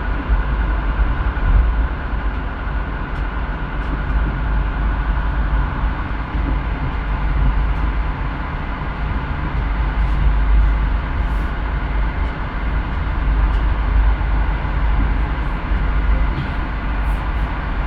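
Train running over a railway bridge: a steady, even noise of wheels on the rails with a heavy low rumble.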